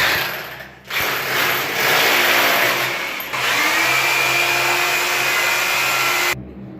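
Hand-held electric power tool run in bursts: a short burst, then a longer run, settling into a steady high whine about halfway through that cuts off sharply near the end.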